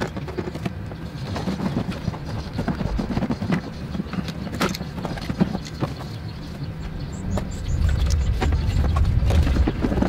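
Irregular clicks, knocks and plastic clatter of hands and pliers working loose the intake duct and hose fittings in a VW Beetle 1.8 turbo engine bay, with one sharper knock about halfway through. A steady low hum runs underneath and grows louder near the end.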